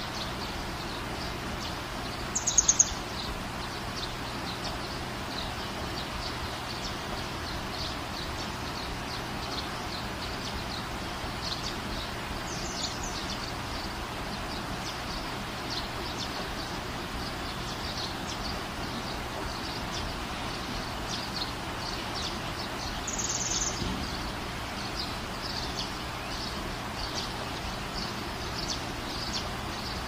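Steady rain hiss with many small birds chirping throughout. A louder, higher bird call stands out twice: a few seconds in and again about three-quarters of the way through.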